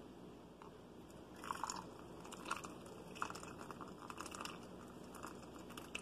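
Hot water poured in a thin stream from a gooseneck kettle spout into a mug of coffee, a faint irregular trickling and splashing with small crackles.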